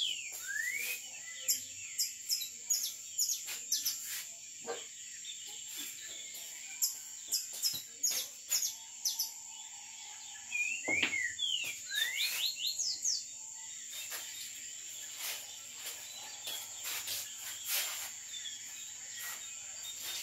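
Steady high-pitched drone of night insects, with a bird chirping in quick rising and falling notes near the start and again about halfway through. Sharp clicks and knocks come and go throughout, one heavier knock about halfway through: cue and snooker balls striking on the pool table.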